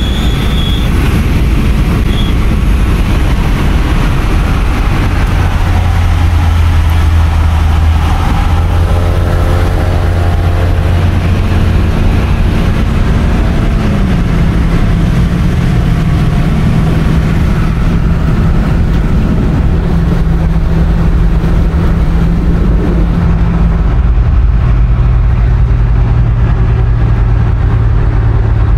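Car cabin noise at steady highway speed: a constant engine drone over tyre and wind rumble, its pitch stepping lower about halfway through and changing again near the end.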